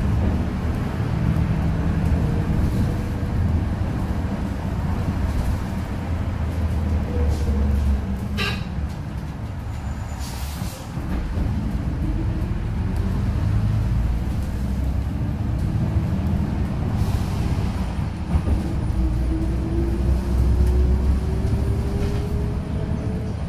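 Low-floor city bus heard from inside the passenger cabin: a steady engine and road rumble, easing off about ten seconds in with a short hiss of air from the brakes, then the engine note climbing steadily as the bus accelerates away.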